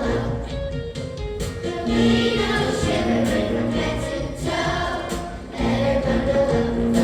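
A choir singing, holding sustained notes.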